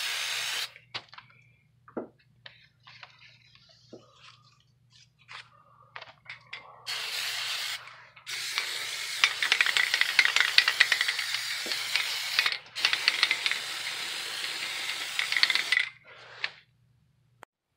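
Aerosol can of Plasti Dip spraying in hissing bursts: a short one at the start, then after a few seconds of faint clicks, several longer passes, the longest about four seconds, stopping shortly before the end.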